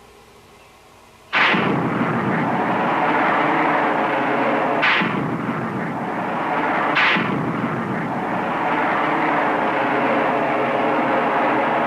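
BOMARC missile launch: a sudden blast of rocket ignition about a second in, then a continuous loud rushing noise, with two more sharp blasts about two seconds apart in the middle as further missiles fire.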